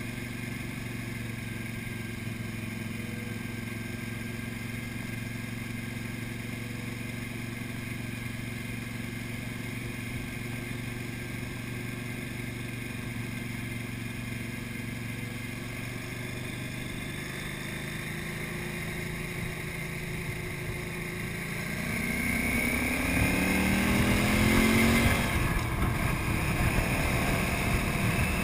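KTM 950 Super Enduro's V-twin engine running steadily at cruising speed, then getting louder under acceleration near the end, its pitch rising before breaking off briefly.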